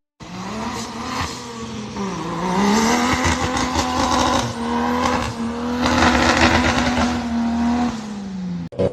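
An off-road vehicle's engine revving under load. Its pitch dips about two seconds in, climbs and holds high, then drops off near the end, with rushing tyre and terrain noise over it.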